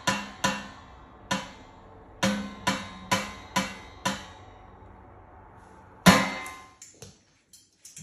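A cockatoo's beak knocking on the lid of a stainless steel pedal bin: about eight sharp metallic knocks, each ringing briefly, over the first four seconds, then one louder knock about six seconds in.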